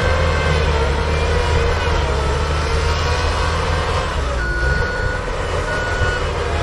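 Bobcat skid-steer loader's engine running steadily as it plows snow. About two-thirds of the way in, its backup alarm starts: two steady beeps, about a second apart.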